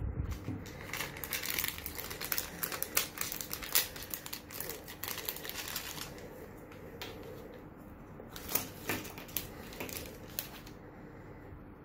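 Clear plastic packaging, a thin bag and a blister tray, crinkling and clicking as hands handle it, with small hard plastic parts clicking. Dense rustling for the first half, then scattered clicks that stop shortly before the end.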